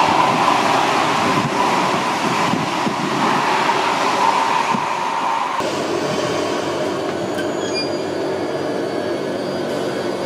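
A double-deck SNCF TER electric train (Regio 2N) running past with a steady rushing rumble. About halfway through the sound cuts abruptly to a train rolling slowly along a platform: lower and quieter, with faint thin high-pitched squeals.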